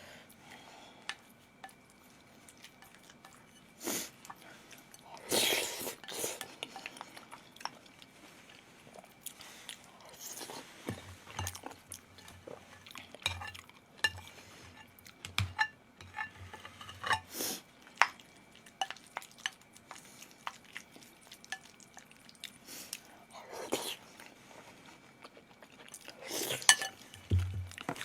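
Someone eating a meal: chewing, with scattered clicks and knocks of utensils against a bowl or plate, a few of them louder.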